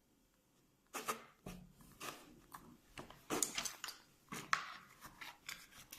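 Sticky homemade glue slime being worked by hand or with a stick: irregular short squishes and crackles starting about a second in.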